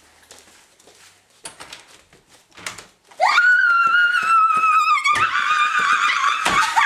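A few seconds of quiet with faint knocks, then, about three seconds in, a woman's sudden, long, high-pitched scream of excitement that is held steady and shifts pitch slightly partway through.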